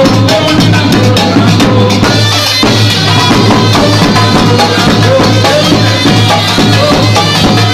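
Moroccan Issawa ensemble playing: large hand-beaten frame drums keep a steady pulsing rhythm under a melody.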